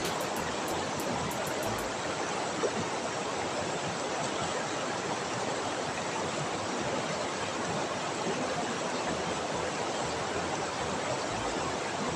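Steady rush of flowing river water, with one brief knock a little under three seconds in.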